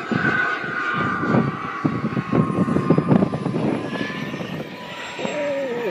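Radio-controlled model jet on its landing approach: a thin, high engine whine that falls steadily in pitch, with gusty rushing noise through the middle. A voice starts near the end.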